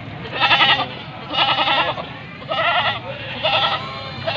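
Goats bleating: four calls, each about half a second long with a wavering pitch, coming roughly a second apart.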